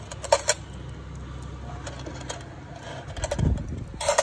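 Metal nail-care instruments clinking against a stainless steel tray: a couple of sharp clinks near the start and a cluster near the end, with a dull thump shortly before the end.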